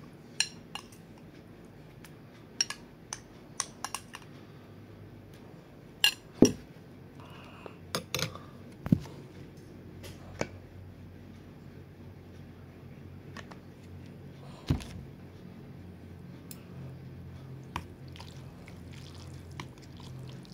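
Metal spoon and fork clinking and scraping against glass bowls as sambal is spooned into a large bowl of noodles and the noodles are mixed: scattered sharp clinks, loudest around six and a half seconds in.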